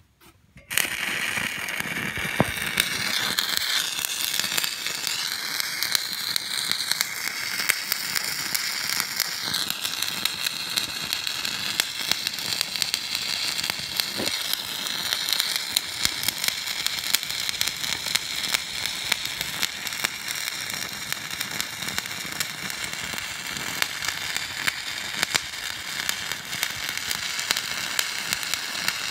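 Stick (SMAW) welding arc struck about a second in, then a steady crackle with frequent sharp pops. The rod runs at 130 amps, hot enough to spit heavier spatter.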